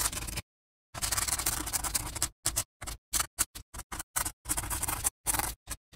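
Pen scratching in drawing strokes, stopping and starting with each line. A longer stretch of scratching begins about a second in, followed by a string of short separate scratches, several a second, with dead silence between them.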